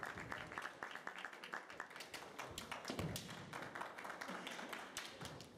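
Scattered hand-clapping from spectators, a quick irregular patter that thins out and fades toward the end, with one dull thud about three seconds in.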